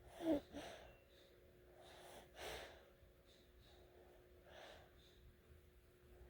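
A sleeper snoring: a sharp, loud snort just after the start, then slower snoring breaths about two and a half seconds in and again more faintly past the four-second mark.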